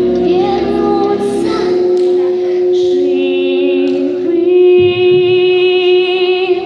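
A girl singing over a backing track, holding one long note that wavers with vibrato through the second half.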